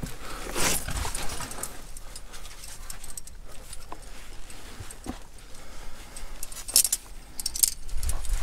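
Metal carabiners and slings on a climbing harness jingling and clinking as the climber pulls himself up a fixed rope, in irregular bursts with rustling between them. Two brighter jingles come near the end.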